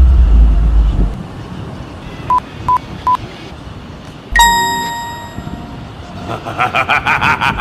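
Three short, even electronic beeps, then a single bright ding that rings and fades, followed by a fast run of clicks. A low rumble of wind on the microphone fills the first second.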